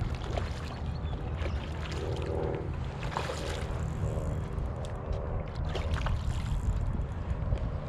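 Hooked trout thrashing and splashing at the water's surface, with a sharp splash a little after three seconds and another about six seconds in, over a steady wind rumble on the microphone.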